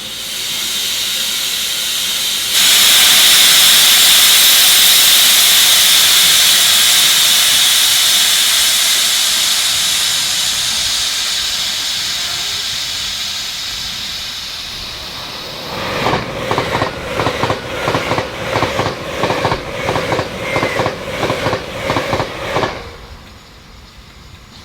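LMS Stanier Black 5 steam locomotive blowing off a loud hiss of steam that fades slowly, then setting off with exhaust beats at about two a second before cutting off suddenly.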